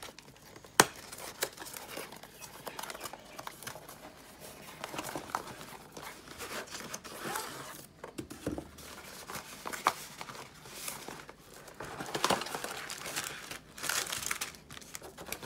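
Diamond-painting kit being unpacked: a cardboard box opened and its plastic-wrapped contents (small bags of resin drills and a drill pen) handled, the plastic crinkling and rustling with many small clicks. One sharp snap about a second in is the loudest sound.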